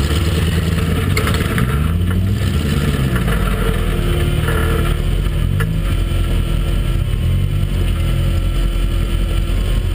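Off-road buggy's engine running and revving up and easing off several times while driving, with a few brief sharp knocks.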